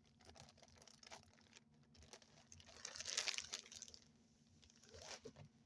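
Plastic packaging crinkling and rustling as it is handled, with a louder rustle about three seconds in and a shorter one near the end.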